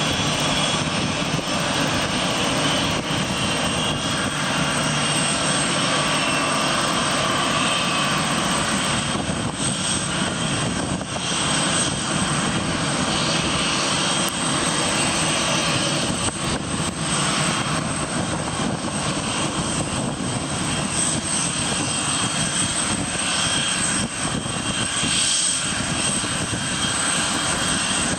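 Boeing 747-400's Pratt & Whitney PW4056 turbofan engines running at taxi idle, a steady jet whine with a constant high-pitched tone over the rushing noise.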